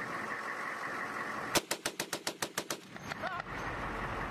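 A single burst of about ten rounds from a Humvee-mounted M240B 7.62 mm belt-fed machine gun, starting about a second and a half in and lasting about a second, over a steady background hiss.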